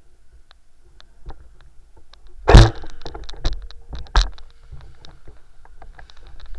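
Scattered clicks and knocks, with one loud thump about two and a half seconds in and a sharp crack about a second and a half later.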